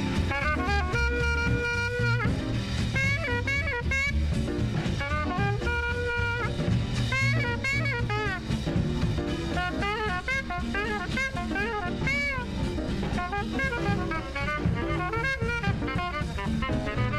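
An old jump-blues style R&B record: saxophone and horn lines over a drum kit, with long held horn notes twice in the first half.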